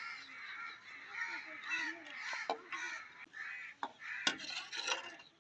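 Birds calling repeatedly in the background, with several sharp clinks of a metal ladle against an aluminium cooking pot as boiled chicken pieces are lifted out, the loudest about four seconds in.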